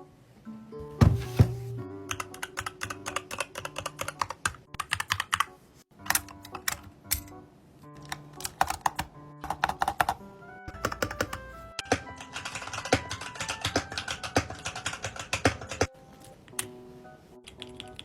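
Background music with held notes, over quick runs of small, sharp clicks and taps.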